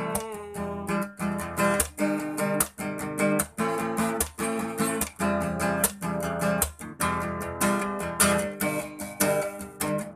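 Acoustic guitar strummed in a steady rhythm, playing the instrumental solo section of a rock song with no singing.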